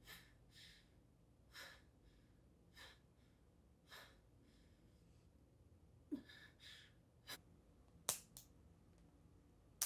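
A woman's breathy exhales, short and hard as from exertion, about one a second. A few sharp clicks near the end.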